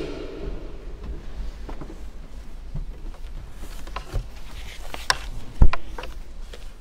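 Handling noise at a wooden pulpit: scattered knocks and rustles of papers being set down, with one loud thump about five and a half seconds in.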